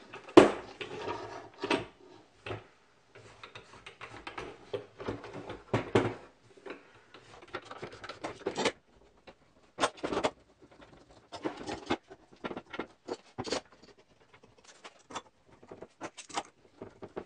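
Bar clamps and screw clamps being fitted and tightened down on a glue-up between wooden cauls: scattered clacks and knocks of metal clamp parts and wood, with a sharp knock about half a second in.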